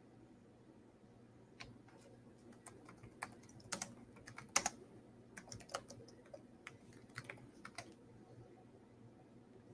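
Computer keyboard typing: faint, irregular key clicks that start about a second and a half in and die away near the end.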